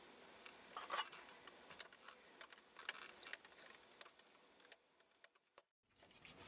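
Diagonal cutters snipping off the protruding wire leads of freshly soldered resistors on a circuit board: a series of faint, sharp snips and clicks, the loudest about a second in.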